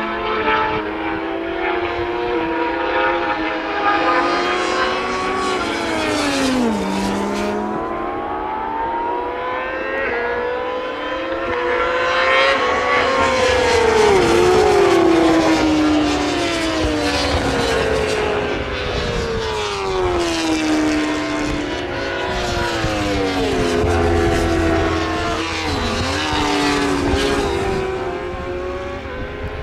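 Racing motorcycles at race pace, several engines overlapping. Each rises and falls in pitch through gear changes as the bikes come past one after another, loudest about halfway through.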